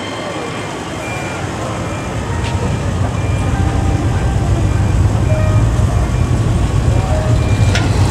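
Engine idling nearby as a deep, steady rumble that grows louder from about three seconds in, over the background noise of a car show crowd.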